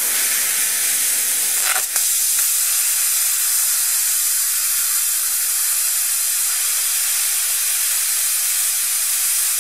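Eastwood Versa Cut 60 plasma cutter torch cutting through a steel drill bit: a loud, steady hiss of the arc and air jet, with a brief click about two seconds in.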